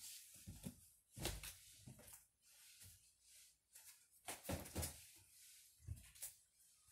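Near silence broken by a handful of faint, scattered knocks and rustles, as of someone handling and moving things about.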